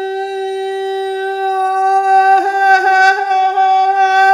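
A soprano holding one sung note around G4. About two seconds in, the tone shifts, turning brighter with a slight waver. She is imitating a vocal effect in which the sound is moved from the front of the mouth toward the back and opened up.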